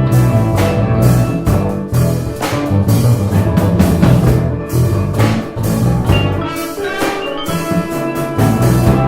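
Live jazz-fusion ensemble playing, with steel pan and drum kit over a steady run of low notes.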